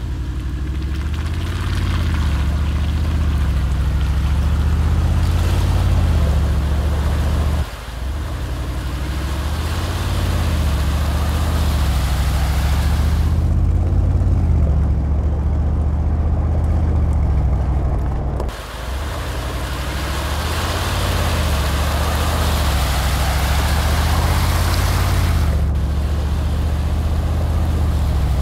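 Mercedes-Benz G-Class driving off-road: engine running steadily with tyre and wind noise, the sound dropping out briefly twice where the footage cuts.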